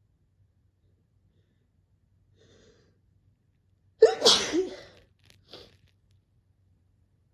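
A person sneezes once, loudly and suddenly, about four seconds in, with a faint short sound shortly before and two small sounds just after.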